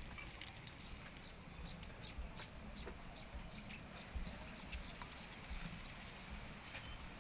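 Faint background of scattered short bird chirps, with soft low bumps and small ticks from hands pressing spiced potato filling into samosa pastry cones.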